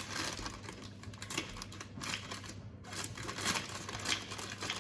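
Scattered light clicks and rustles of scissors and other kitchen items being picked up and handled.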